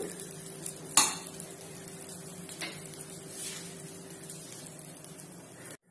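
Spatula stirring and scraping cooked daliya pulao in a nonstick pan, with a sharp knock about a second in and a lighter one a little later as the spatula strikes the pan. A steady low hum runs underneath.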